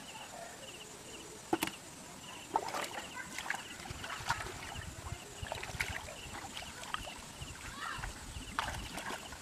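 Hands groping and splashing in shallow muddy water: irregular sharp splashes and slaps, with dull low sloshing thuds from about halfway through.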